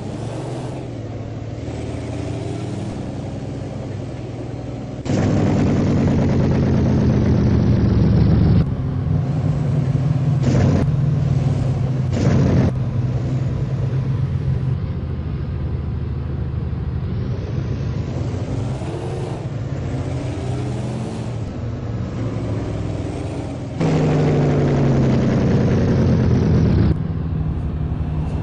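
Cummins N14 inline-six diesel truck engine running through a 6-inch exhaust as the truck pulls away. Steady running is broken by a loud three-second stretch of throttle about five seconds in, then two short blips, and another loud stretch of throttle near the end that cuts off suddenly.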